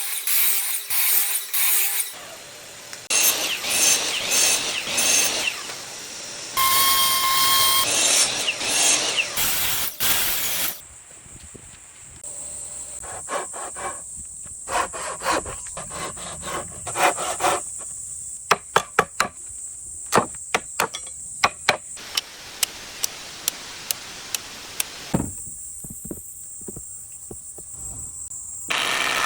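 Woodworking sounds in quick succession: power tools cutting wood, one stretch with a steady whine, then a long series of sharp knocks of fastening, over a steady high hiss.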